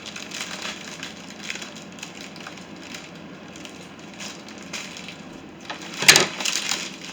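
Crinkling and crackling of a plastic bouquet sleeve being pulled off cut flowers, in small scattered crackles with one louder crackle about six seconds in.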